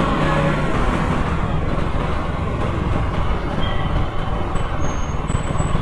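Motorcycle engine running under way, mixed with steady wind and road noise.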